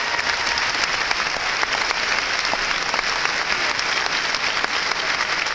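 A large audience applauding: dense, steady clapping that holds at an even level throughout.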